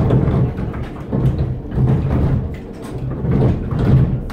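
The wooden gearing and millstones of a historic windmill running: a low rumble that swells and fades about once a second, with wooden knocking and clatter throughout.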